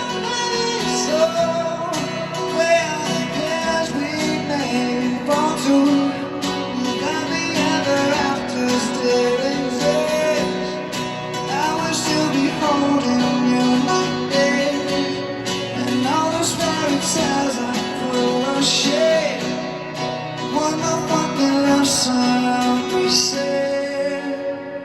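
Live band performing a pop song, with acoustic guitar strumming under singing. It fades down near the end.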